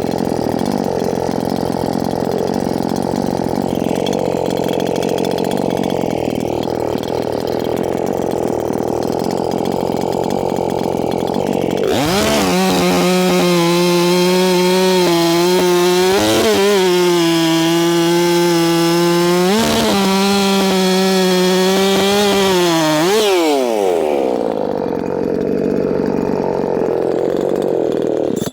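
Makita 6100 two-stroke chainsaw with a freshly sharpened Oregon EXL chain cutting through a log under load for about twelve seconds. The engine then runs free at full throttle in a high, steady whine, dips briefly twice, and winds down to a lower running sound about 23 seconds in.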